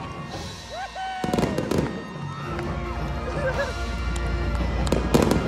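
Aerial fireworks bursting in a string of sharp cracks and bangs, one cluster just over a second in and another near the end, over a marching band playing.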